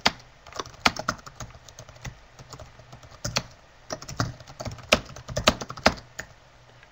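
Typing on a computer keyboard: irregular keystrokes in short uneven runs with pauses between them, over a faint steady hum.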